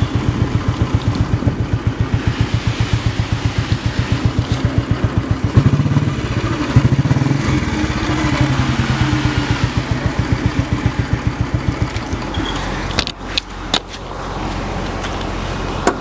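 Motorcycle engine idling with an even, rapid thumping beat, with a couple of louder bursts near the middle; it stops about three quarters of the way through, followed by a few sharp clicks.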